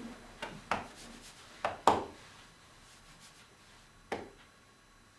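Two people hugging: a few short, soft rustles and taps of clothing and hands on backs, most in the first two seconds and one more about four seconds in, with quiet room tone between them.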